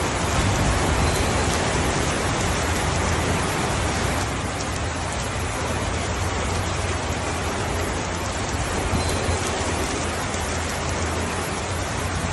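Steady rainfall: an even hiss of many drops, with a low rumble underneath. It eases slightly about four seconds in.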